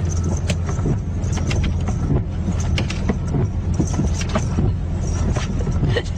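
Steady low rumble of a car heard from inside the cabin, engine and road noise while driving, with irregular light knocks and squeaks at the windshield where the wipers sweep the wet glass.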